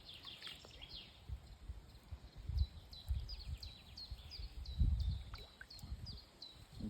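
A small bird calling over and over with short, high, downward-hooking chirps, about three a second. Under it runs an irregular low rumble that swells loudest about two and a half and again about five seconds in.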